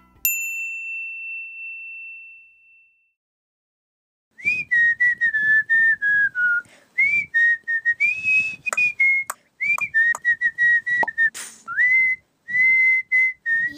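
A single bright ringing tone sounds and fades away over about three seconds. After a short silence, a person whistles a wandering tune in short phrases, sliding up into some notes, with a few light clicks between them.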